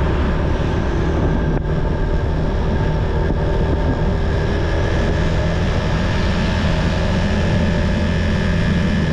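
Motorcycle riding along a road: the engine drones steadily at cruising speed under a constant rush of wind noise on the camera microphone.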